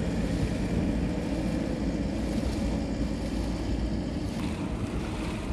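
Wind buffeting the microphone as a steady low rumbling rush, over the wash of floodwater.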